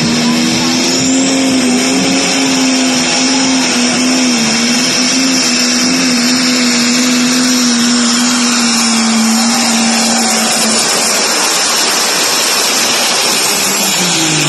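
Pulling tractor's engine running flat out under load, a loud steady high-revving note with a slightly wavering pitch that holds for about ten seconds and then fades. Near the end the engine note falls sharply as it winds down.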